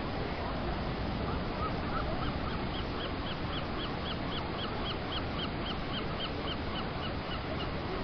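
Steady rushing of ocean surf breaking on rocks, with wind noise. From about two seconds in, an animal gives a rapid series of short, high, repeated calls, about four a second, that fades out near the end.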